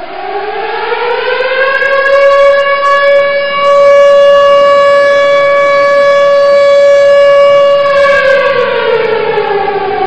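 A siren wailing: its pitch rises over the first two seconds or so, holds steady for about five seconds, then begins to fall near the end.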